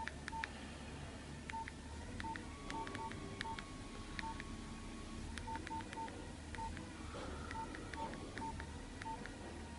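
Keypad beeps from a Nuvoton NUC140 learning board as keys are pressed to type a name and number. Each is a short single-pitch beep, coming at an uneven typing pace, with faint clicks of the buttons.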